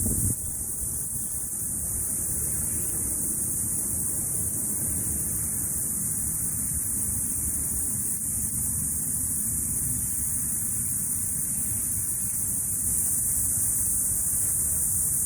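Cicadas buzzing in a steady, high, unbroken drone, over a constant low rumble.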